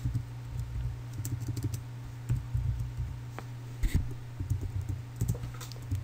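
Typing on a computer keyboard: irregular key clicks over a steady low hum.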